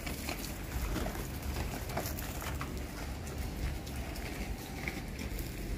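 Garden hose spraying a weak stream of water onto tomato plants: a steady pattering hiss, with a low rumble of wind on the microphone.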